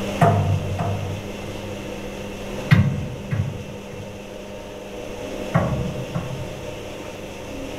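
A steady low hum with pairs of dull knocks, the two knocks of each pair just over half a second apart, coming back about every three seconds, three times.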